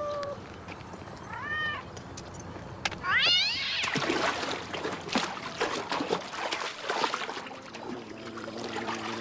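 A cat meowing several times, with a loud rising yowl about three seconds in, followed by splashing water. Steady musical tones come in near the end.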